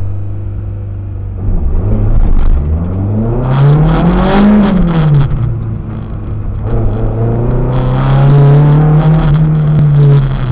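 Toyota KE25 Corolla's 4A-GE twin-cam four-cylinder engine, heard from inside the cabin, running steadily at first and then pulling away hard. About a second and a half in, the revs climb to a peak, fall away, then climb again and drop off near the end.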